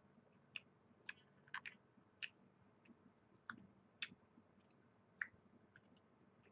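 Faint chewing of a dense, chewy protein bar: a scattered series of short, wet mouth clicks at irregular intervals.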